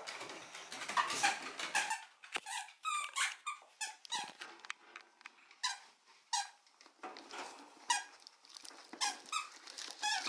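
Small dog whining in many short, high squeaks that bend in pitch, begging excitedly, over the crackle of plastic and paper shopping bags being rummaged through.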